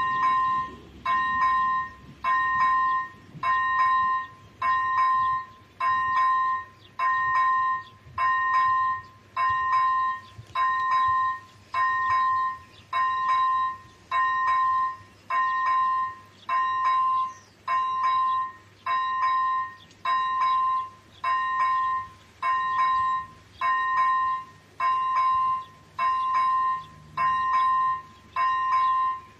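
ZV-01 electronic level-crossing bell on an AŽD 71 crossing, ringing in even pulses of two steady tones about once a second: the crossing is active and warning of an approaching train.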